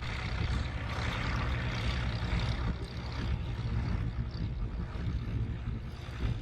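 Vintage tractor engine running steadily under load while pulling a plough.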